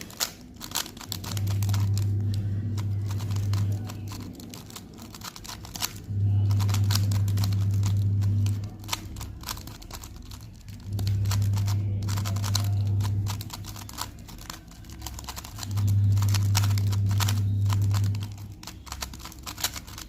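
Plastic 3x3 Rubik's cube being speed-solved: rapid, uneven clicking of the layers turning. A low hum switches on and off about every five seconds, four times, louder than the clicks.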